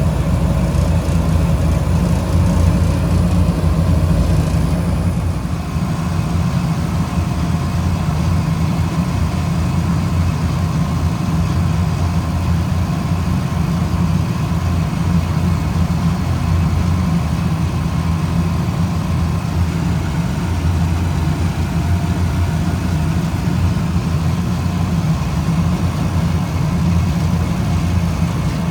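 Refrigeration equipment running with a steady low hum. A fainter higher hiss and tone drop away about five seconds in.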